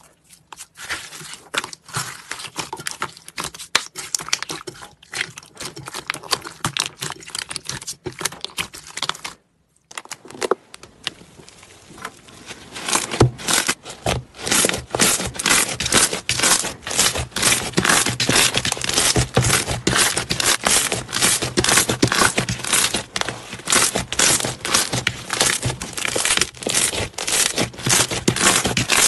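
Hands pressing, kneading and squishing slime, giving dense crackling, crinkling and popping. It breaks off briefly about nine seconds in and is louder and denser from about thirteen seconds on.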